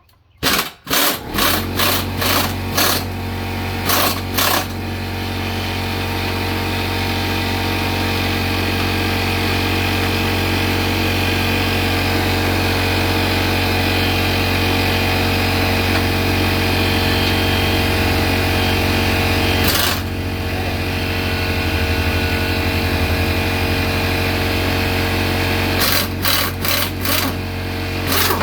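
A lawn tractor's small engine starts with a few quick sputters in the first seconds, then runs steadily at a fast idle. There is a short break in its sound about two-thirds of the way through and a few sharp knocks near the end.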